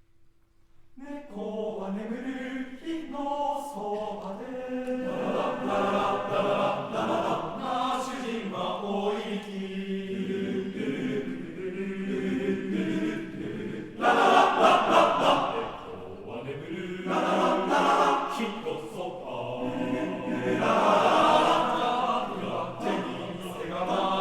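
Unaccompanied men's choir singing in several parts, entering about a second in and swelling louder about 14 seconds in.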